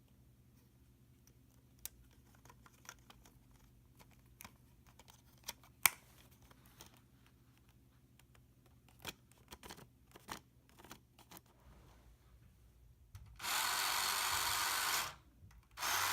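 Small plastic clicks and taps as the toy's drive pulley is refitted. Then the Hot Wheels Tune-Up Tower's small motorized elevator starts up about 13 seconds in and runs steadily, stops briefly, and starts again near the end. The drive roller is wrapped in friction tape to stop the elevator belt from slipping.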